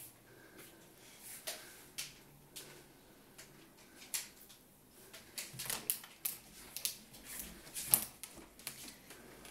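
Irregular light clicks and taps, a few at first and then more often and louder in the second half, the sharpest about eight seconds in.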